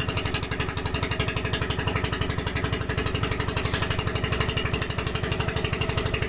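Engine of a motorized outrigger bangka running steadily under way, with a fast, even pulse.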